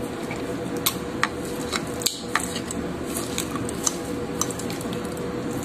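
Metal fork cutting into pancakes and tapping and scraping against a ceramic plate: a scatter of light, sharp clicks every half second or so.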